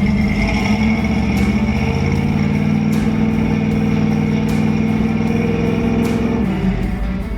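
Ford F100 truck engine, fed by a Holley Sniper fuel injection with a newly replaced injector, held at raised revs with its pitch creeping slowly upward, then dropping back toward idle about six and a half seconds in. It runs evenly, as a healthy engine with all injectors working.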